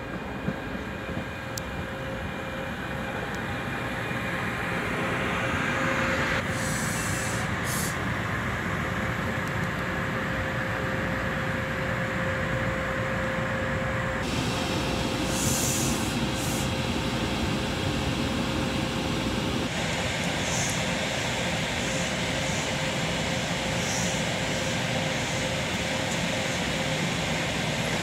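Double-ended electric interurban car heard from on board, running along the track: a steady rumble of wheels and motors that grows louder over the first several seconds as it gathers speed. A steady hum in the running noise drops away about twenty seconds in.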